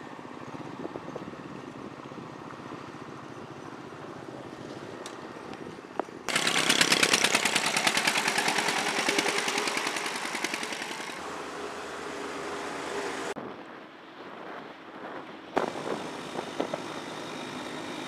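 Motorcycle engine running with road and wind noise, in several cut-together stretches. A louder stretch with a fast, rattling pulse starts suddenly about six seconds in and fades after about five seconds.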